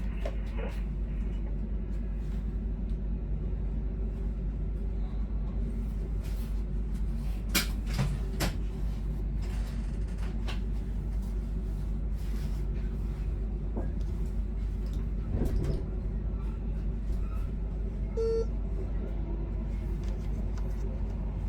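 Steady low hum of a commuter train's driver's cab, with a few sharp clicks and knocks and one short beep near the end.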